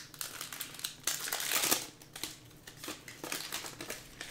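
Foil wrapper of a Panini Prizm football card pack crinkling as it is torn open, loudest about a second in, then light clicks and rustles as the cards are handled.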